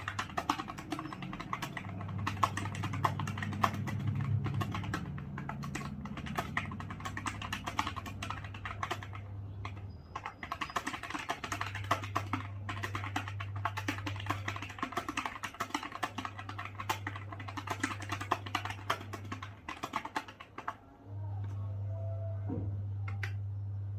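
Fast typing on a computer keyboard, a dense run of key clicks that stops about twenty seconds in. A steady low hum comes and goes behind it and carries on alone near the end.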